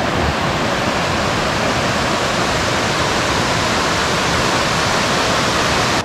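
Water pouring steadily down a steep rock-slab waterfall in a mountain stream: a loud, even rush that cuts off abruptly at the end.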